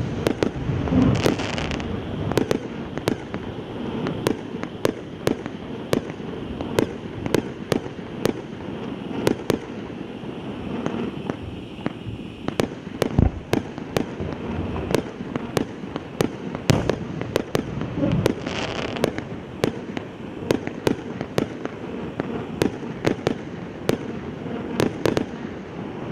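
Heart-shaped set of pyrotechnic contour candles (lances) burning: a steady hiss broken by sharp cracks and pops, about two a second.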